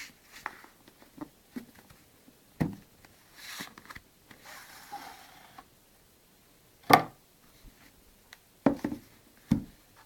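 Packaging being handled: several sharp knocks, the loudest about seven seconds in and two more near the end, with soft rustling in between.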